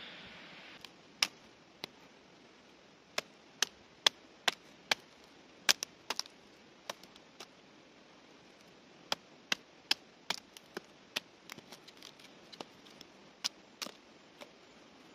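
A small blade chopping dry sticks into kindling: a string of sharp, irregular wooden knocks, about two a second, some in quick clusters.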